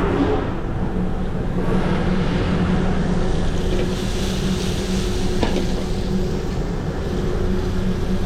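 Steady mechanical drone of commercial kitchen equipment, a low hum with a constant tone over a broad rushing noise. A single sharp click sounds about five and a half seconds in.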